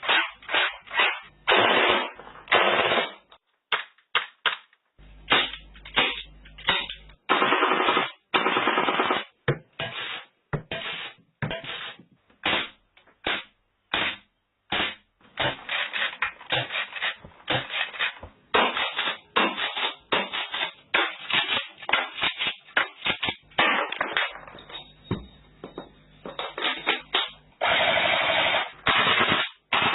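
Airsoft gun dry-firing with no BBs loaded: a string of sharp single clacks mixed with longer rapid bursts of the mechanism cycling.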